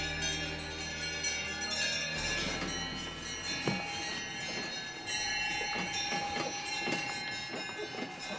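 Cowbells on stabled dairy cows clanking and ringing irregularly as the animals move, with background music that fades out about two seconds in.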